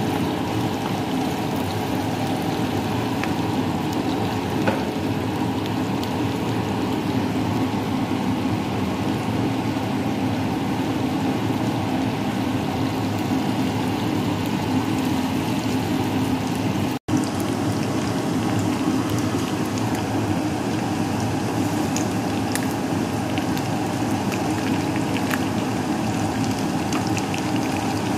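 Shrimp sizzling steadily in plenty of hot cooking oil in a frying pan, with faint crackles through the sizzle. The shrimp were boiled first and are now being sautéed.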